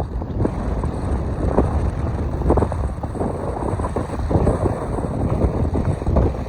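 Strong wind buffeting the microphone: a heavy low rumble with irregular gusts.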